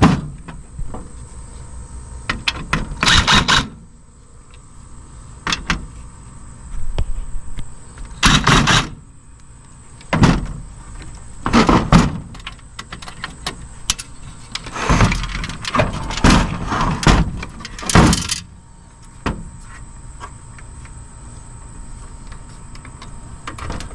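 Irregular clattering and knocks of metal parts and tools while a cassette deck's chassis is being taken apart, with several short half-second rattles among single thuds.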